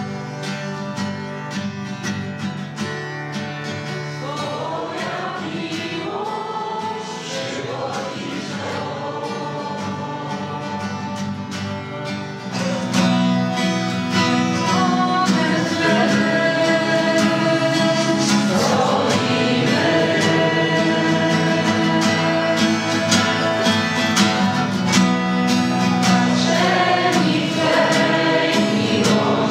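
A group of people singing a worship song together to an acoustic guitar. The singing grows louder about twelve seconds in.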